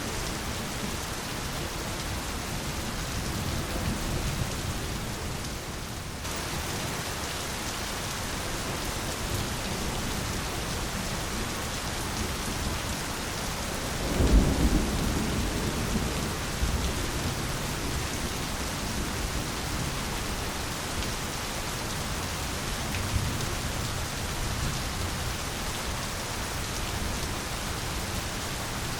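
Steady rain falling, with a low rumble of thunder about halfway through that swells and fades over a few seconds.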